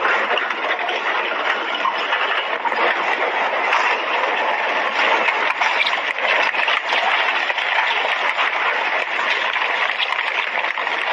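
Landslide sliding down a mountainside: a steady, loud rushing noise of earth and debris pouring down the slope, with no separate crashes standing out.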